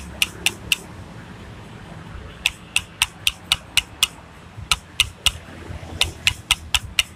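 Connecting rod on a bare motorcycle crankshaft clacking as it is rocked back and forth by hand: sharp metallic clicks in runs of about four a second. The clicks come from play in the loose connecting rod, which the mechanic blames for the engine's rough running.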